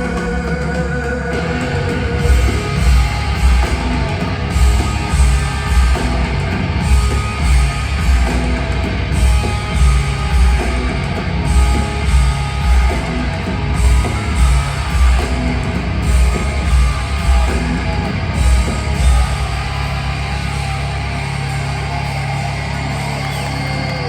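Rock band playing live, loud and bass-heavy, with a strong beat that pulses about twice a second and then settles into a steadier, even wash of sound for the last few seconds.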